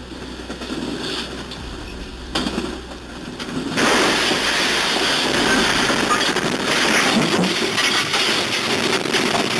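Head-on collision of two freight trains, heard from inside the cab of a GE Dash 9 locomotive running in emergency braking. The cab noise builds, then about four seconds in the impact comes as a sudden loud crash. It goes on as several seconds of loud, dense crashing and grinding noise as the locomotives derail.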